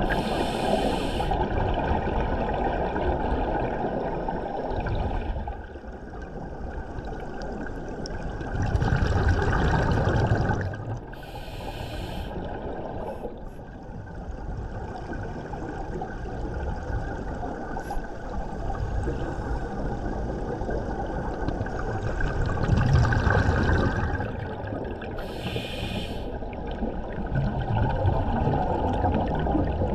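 Underwater bubbling and rushing of a helmet diver's exhaust air, swelling and fading with the breathing. Three short hissing bursts come through: at the start, about 11 seconds in, and about 25 seconds in.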